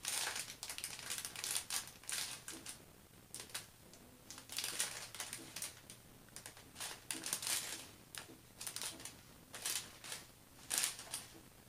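Small plastic bags of diamond-painting resin drills being handled and sorted through, with irregular light clicks and crinkles of the plastic.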